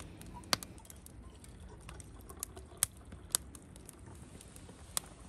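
Firewood burning in a wood-fired grill, crackling with a handful of sharp, separate pops over a low, even rumble of the flames.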